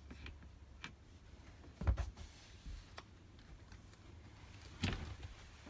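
Plastic side frame of a caravan window blind being worked loose by hand and screwdriver: scattered small clicks and two sharp knocks, one about two seconds in and one near the end.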